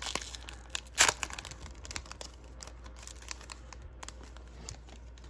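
Foil hockey card pack wrapper (Upper Deck Synergy) being torn open by hand: crinkling and crackling, loudest about a second in, then quieter crinkles as the wrapper is pulled apart.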